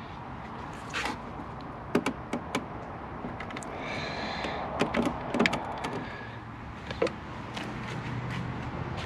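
Scattered sharp plastic clicks and knocks as a fuse is pulled from and pushed into the rear fuse box of a BMW X5 F15, replacing the fuse that the air suspension needs to work.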